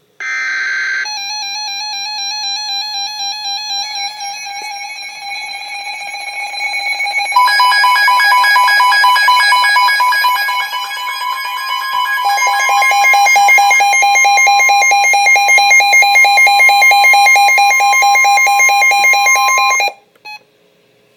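Emergency Alert System alert tones: a short burst of warbling digital data header, then the attention signal, a steady electronic multi-tone alarm with a buzzy pulsing texture that grows louder about seven seconds in and cuts off suddenly after about nineteen seconds.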